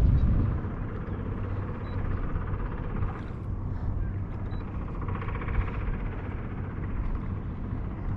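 Steady low hum of a boat motor running, with a few faint, short high beeps.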